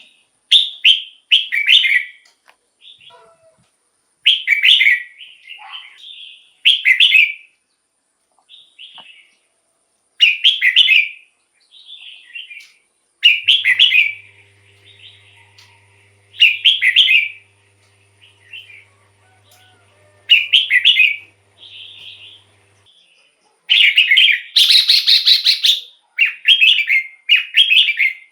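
Red-whiskered bulbul singing: loud, short whistled phrases repeated every few seconds, with quieter chirps between them. Near the end comes a longer, denser burst of song.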